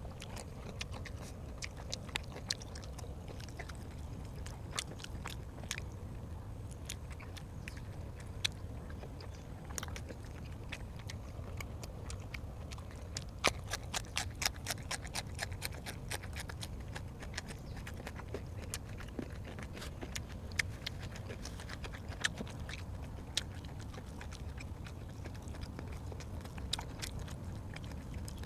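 Close-miked eating sounds: a person chewing and crunching food, with scattered sharp clicks that come thick and fast around the middle, over a steady low hum.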